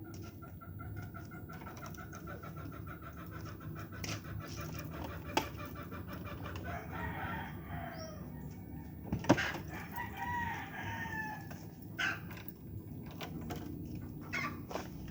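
Chickens clucking and a rooster crowing, with a single sharp knock about nine seconds in.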